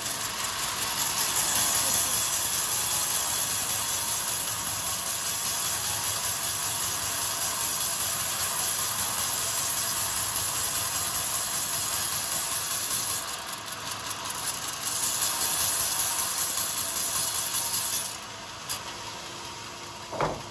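Band sawmill blade cutting lengthwise through a beam of old, very hard coconut-palm timber: a steady high-pitched rasp. It dips briefly about two-thirds of the way through and drops to a quieter level near the end.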